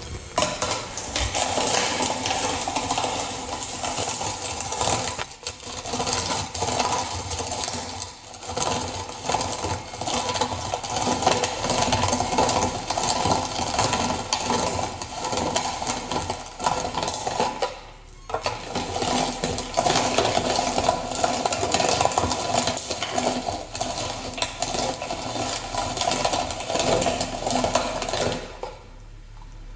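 Hand-cranked manual meat grinder being turned, grinding steadily, with a few short breaks in the cranking and a stop near the end.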